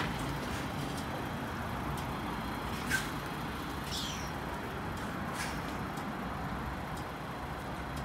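Steady low rumble of road vehicles, with a faint click about three seconds in and a short high chirp about a second later.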